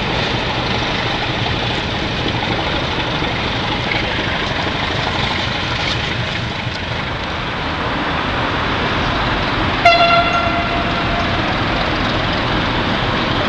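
Class 749 diesel locomotive running steadily, with a single short, high horn toot about ten seconds in.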